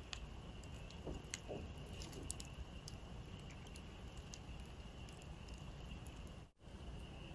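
A wood campfire burned down to glowing embers, crackling softly with scattered small pops, over a steady high-pitched chirring of insects.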